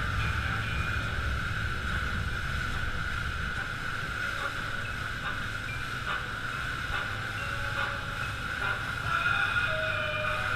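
Rigid inflatable speedboat under way at speed: a steady engine rumble mixed with the rush of water along the hull.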